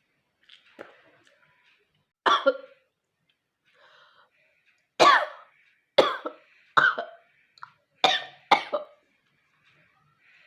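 A woman coughing and clearing her throat in short bursts, deliberately working up phlegm to spit. One faint cough, then two close together, then a run of five coughs in the second half.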